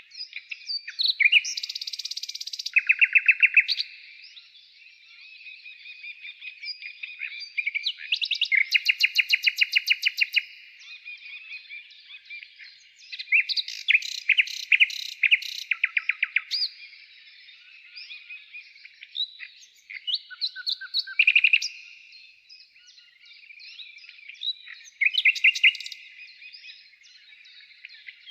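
Songbird singing a long, varied song of chirps, whistled notes and rapid trills. Loud, fast trills come every few seconds.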